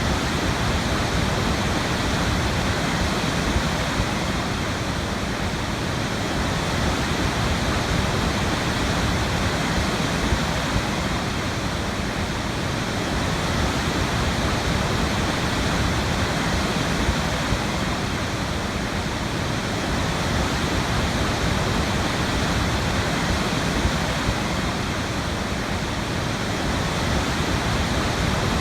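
Waterfall pouring steadily, a continuous even rush of falling water.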